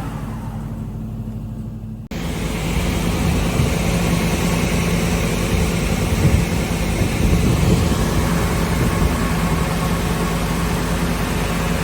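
SCM Sandya 3S wide-belt sander running: a steady low hum from its 18.5 kW sanding-head motor, which changes abruptly at about two seconds into a fuller, hissing machine noise with the same steady tone, swelling slightly a few times.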